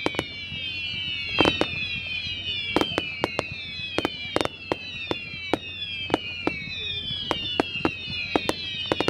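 Fireworks going off: many sharp bangs and cracks at irregular intervals, with several overlapping whistles that each fall in pitch.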